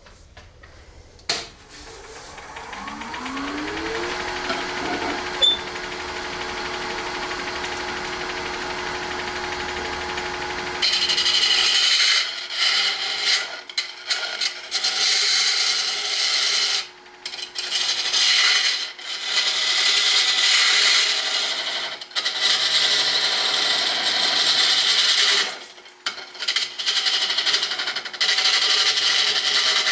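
A wood lathe starts with a click and spins up with a rising whine, then runs steadily. From about eleven seconds in, a turning gouge cuts the spinning Alumilite resin-and-burl blank in loud scraping passes broken by short pauses.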